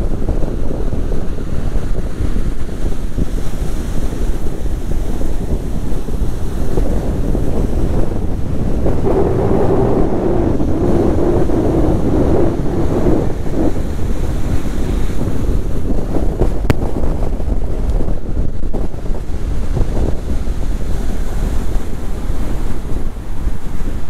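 Strong wind buffeting the microphone over heavy surf breaking and washing up a sand beach. The surf swells louder for a few seconds near the middle.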